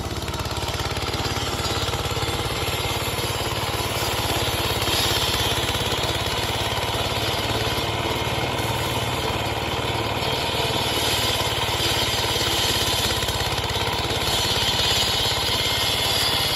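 Asphalt road saw driven by a single-cylinder Dongfeng diesel engine, running steadily under load as its blade cuts through asphalt. A grinding hiss from the cut swells about five seconds in and again near the end.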